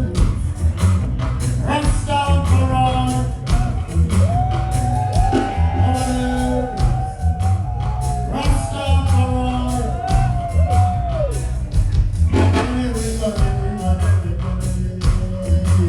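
Live reggae band playing: heavy pulsing bass and a steady beat of cymbal ticks, with a voice singing and wailing over it, sliding up and down in pitch through the middle.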